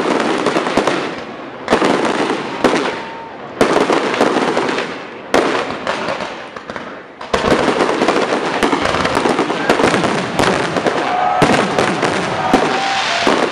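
Aerial fireworks display. Shells burst with a sharp bang about every two seconds, each followed by fading crackle. From about seven seconds in they merge into a dense, continuous barrage of bangs and crackling, with a few thin whistles near the end.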